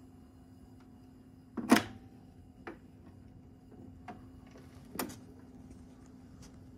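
BSR record changer cycling: a sharp clunk about two seconds in, then three lighter clicks spread over the next few seconds as the mechanism drops the next 45 and moves the tone arm, over a faint steady hum.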